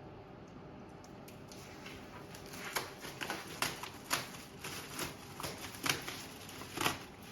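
Bubble wrap being pulled off and handled, crinkling and crackling in irregular bursts that start about two seconds in.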